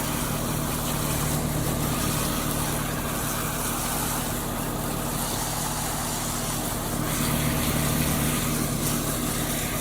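An engine idling steadily, a low even hum with a hiss over it.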